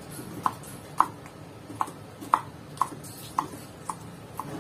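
Kitchen knife slicing okra into rounds on a wooden cutting board: about eight sharp knocks, roughly two a second, as the blade strikes through onto the board.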